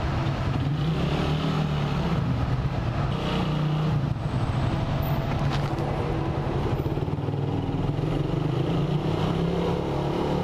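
Suzuki Raider 150R's single-cylinder four-stroke engine running steadily at low speed, a low drone echoing off the concrete of an underground car park.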